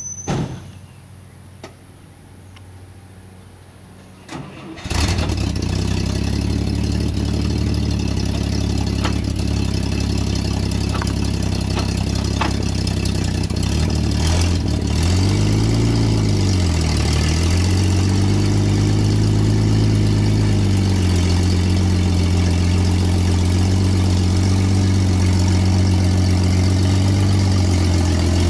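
Engine of a 1954 Dodge M43 military ambulance, a flathead inline six, starting about five seconds in and catching almost at once, then running. Its pitch dips and rises a couple of times around the middle, then it runs steadily.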